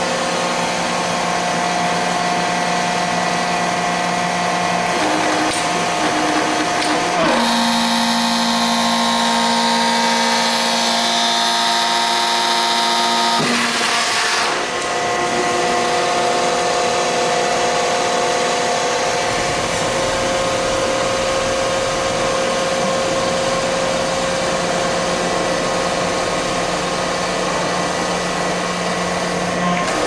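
Hydraulic power unit of a 150-ton Nordberg horizontal hydraulic bulldozer, electric motor and pump, running steadily as the ram is moved in and out from the push-button pendant. The pitch of its steady hum shifts about 7 s in, with an added hiss until about 13 s. A brief rush of noise comes about 14 s in before the steady running returns.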